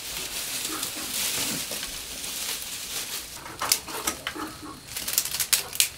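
A steady hiss with several sharp metal clicks and knocks, most of them in the second half, from a wok heating over a stove fire and metal tongs against it.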